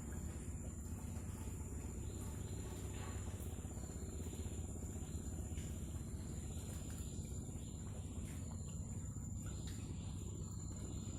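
Steady high-pitched insect chirring, one unbroken tone, over a low rumble.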